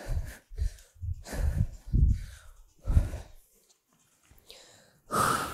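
A woman breathing hard from exertion: a run of short, forceful exhales, a pause of about a second and a half, then one more near the end.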